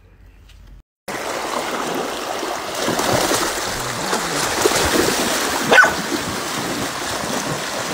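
After a short quiet start, a shallow river flows with a steady rushing of water. There is one short sharp sound just before six seconds in.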